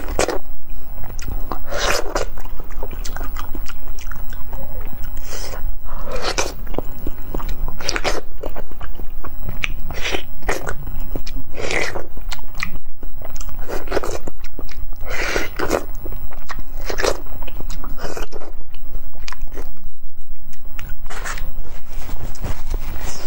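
Close-miked mouth sounds of a person eating ripe mango: bites into the soft flesh and chewing, repeating every couple of seconds.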